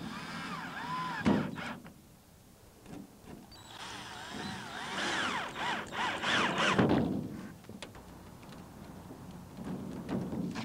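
Cordless drill driving 2½-inch screws into a greenhouse's wooden wall-panel frame: short runs of motor whine that rise and fall in pitch as the trigger is worked, with a few knocks between them.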